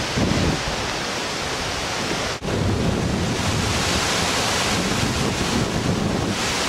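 Strong, gusty wind blowing across the microphone: a steady, loud rush of wind noise, broken by a brief dip about two and a half seconds in.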